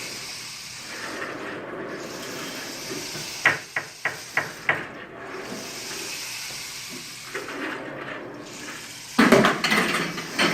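A steady hiss with a quick run of about five sharp knocks about three and a half seconds in, then a louder burst of clattering near the end.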